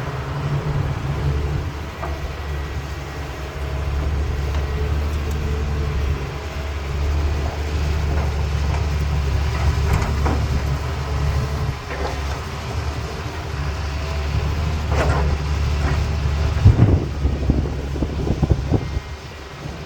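CAT 320B excavator's diesel engine running with a steady deep rumble, with scattered knocks and clanks of rock and the steel bucket, the loudest about 17 seconds in.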